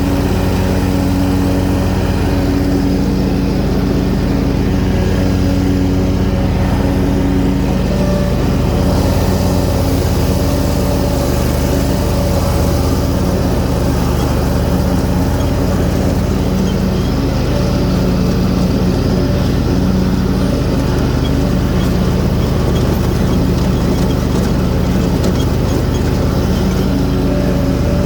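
Hustler Raptor zero-turn mower's 21.5 hp Kawasaki V-twin engine running steadily at high throttle with the cutting blades engaged, mowing low through wet grass.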